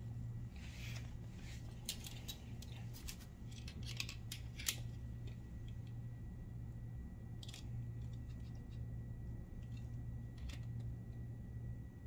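Light metallic clicks and scrapes of a digital caliper being slid and set against a chain's master-link rivet to measure its flare, over a steady low hum.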